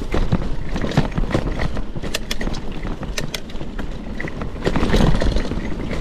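Mountain bike clattering over a rocky trail, with many irregular sharp knocks from the wheels striking stones over a steady low rumble.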